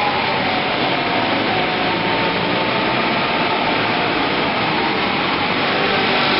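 Engines of several small race cars running together on an indoor dirt track, a continuous buzzing drone that dips slightly in the middle as the pack moves away and builds again near the end as cars come back round.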